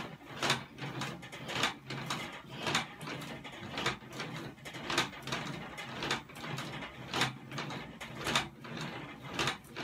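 Cast-iron weight plates clinking and rattling on a loaded barbell as it is lifted in repeated reps, a sharp clank about once a second.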